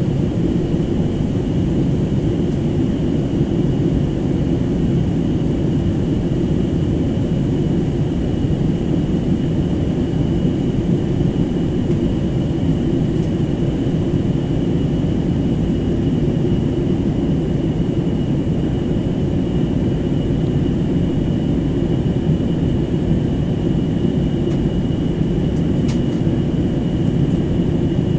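Steady low drone of engine and airflow noise inside the cabin of an Airbus A321 airliner, with a faint steady high whine above it.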